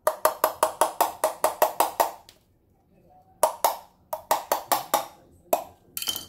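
Rapid run of sharp plastic clicks, about five a second, then three shorter runs after brief pauses, as a metal rod is worked along the seam of a clear plastic fruit mould to prise it open.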